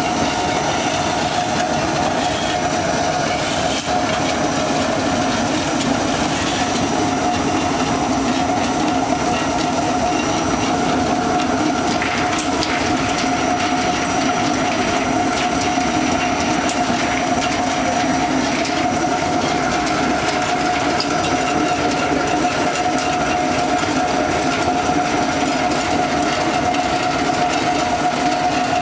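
Vertical ring-die centrifugal pellet mill running under load, pressing bamboo sawdust into pellets. A loud, steady mechanical noise with a constant whine.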